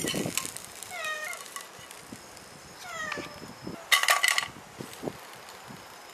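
Cats meowing: two short meows falling in pitch, about a second and three seconds in, then a louder, harsh burst about four seconds in.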